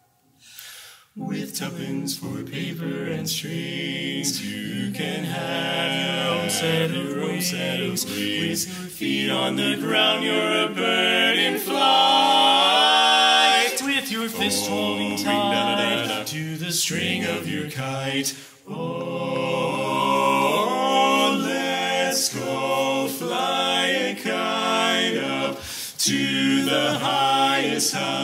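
Male barbershop quartet (tenor, lead, baritone and bass) singing a cappella in close four-part harmony. The voices come in about a second in after a short pause, and break off briefly about two-thirds of the way through before going on.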